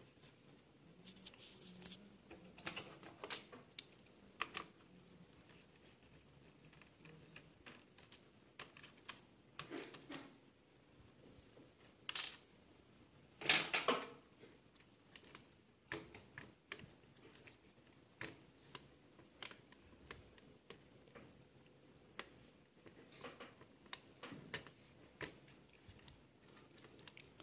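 Scattered plastic clicks, taps and short scrapes as an Acer Aspire laptop's casing and parts are handled and pried apart during disassembly. The loudest is a brief scrape about halfway through.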